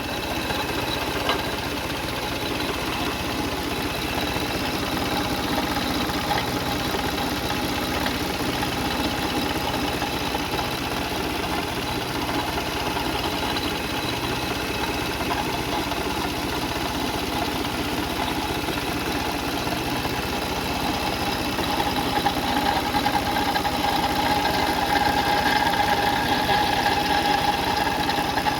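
Car engine idling steadily, with steady high whining tones over the running, a little louder from about twenty-two seconds in.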